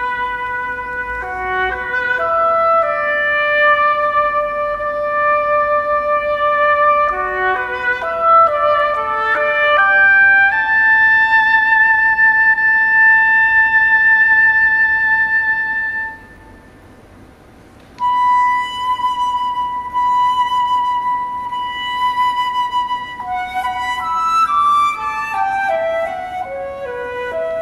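Flute and oboe playing a classical duo together: long held notes joined by short runs, a brief pause about two-thirds of the way through, then a falling run of notes near the end.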